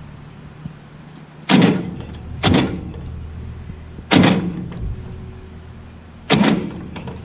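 The Massey Ferguson 135's Continental gas engine being bumped over with the starter motor in four short jabs, each a brief burst that cuts off quickly. Each bump turns the engine a little, to bring the distributor cam onto the high point that opens the new points for gapping.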